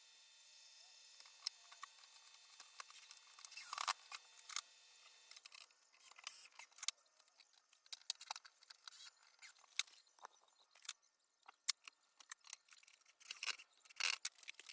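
Scattered light clicks and taps, the handling of small hard objects such as tools or hardware, with no steady motor sound.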